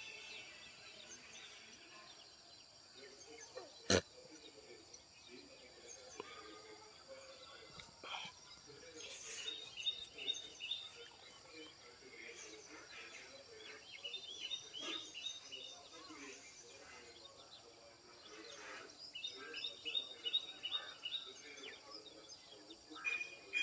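Morning outdoor ambience: birds calling in runs of short, quickly repeated high chirps, three times, over a faint steady high hiss, with one sharp click about four seconds in.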